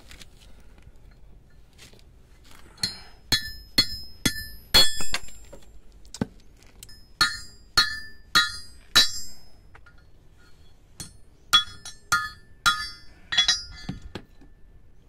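Hammer striking a steel rod held in locking pliers on a steel plate: sharp metallic blows that ring after each hit, in three quick runs of five or six strikes with short pauses between them.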